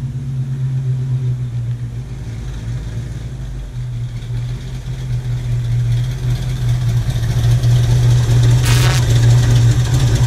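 1966 Mustang's V8 engine running at a low, steady idle-like rumble as the car rolls slowly forward, growing louder as it nears. A short rushing noise sounds a little before the end.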